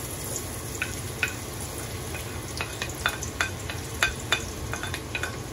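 Garlic sautéing in hot oil in a large stainless steel pot: a steady sizzle with about a dozen scattered sharp ticks and pops.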